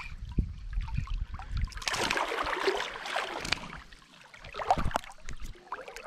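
Water splashing at the surface as a small hooked smallmouth bass is reeled up to the side of a small boat, with a burst of splashing about two seconds in and scattered knocks of rod and reel handling.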